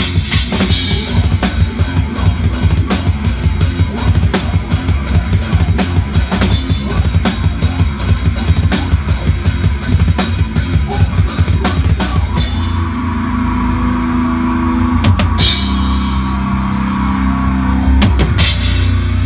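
Drum kit played live in loud rock music: fast, dense drumming for about twelve seconds, then the band holds long low notes, broken by a few single crashing hits.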